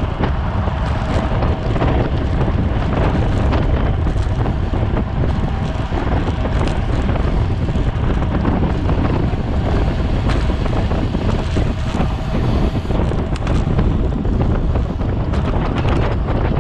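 Steady, loud wind buffeting the microphone of a camera on a bicycle ridden at race speed, with scattered short clicks over it.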